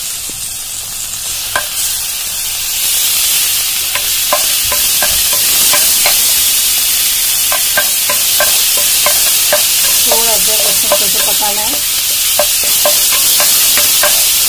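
Minced garlic and ginger-garlic paste sizzling in hot oil in a frying pan, the hiss growing louder about three seconds in. A spatula scrapes and taps the pan bottom in quick, regular strokes.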